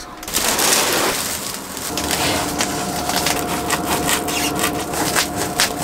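Foil-faced foam heat-reflective insulation sheet crinkling and crackling as it is handled and pressed onto a van's metal wall: a dense rush of rustling in the first second, then many small sharp crackles. A faint steady hum runs underneath from about two seconds in.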